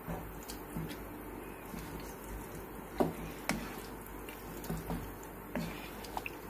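A spatula stirring a watery mix of minced beef, bones and chopped vegetables in a wok, with wet squelching and occasional light knocks against the pan, the strongest about three seconds in.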